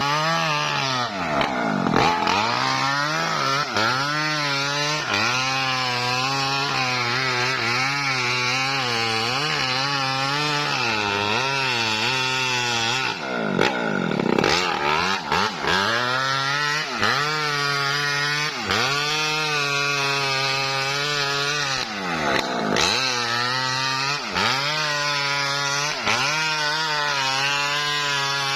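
Small petrol-engine saw ripping lengthwise through a coconut palm trunk, running at high revs with a steady pitch that dips and recovers several times as the engine bogs under load in the cut, most deeply about two seconds in, around the middle and again later on.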